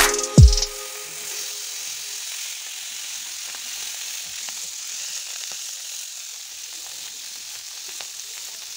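A burst of music with falling bass drops cuts off about half a second in. Then whole fish shallow-frying in hot oil in a pan give a steady sizzle with scattered small crackles.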